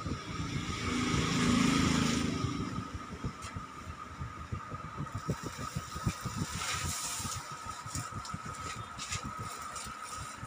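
A motor vehicle passing close by, its sound swelling and fading about one to three seconds in, over a steady high-pitched tone and irregular low background noise.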